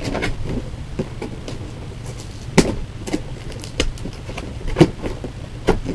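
Cardboard doll packaging being handled and pulled apart: scattered knocks and scrapes of the cardboard, the sharpest about two and a half seconds in and again near five seconds, over a steady low hum.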